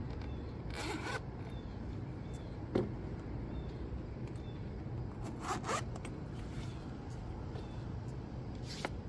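Zipper on a black suede stiletto ankle boot being pulled, in short rasping runs about a second in and again about five and a half seconds in, with a shorter one near the end. A single knock sounds between them, a little under three seconds in.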